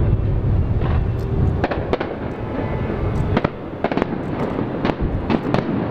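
Fireworks display going off: a low, continuous rumble of bursting shells, then a string of sharp cracking bangs at irregular spacing, about six of them, bunched in the second half.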